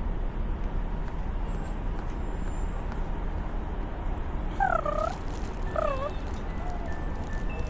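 Steady low hum with a hiss, and two short squeaky calls that dip and rise in pitch, about five and six seconds in, with a fainter one shortly after.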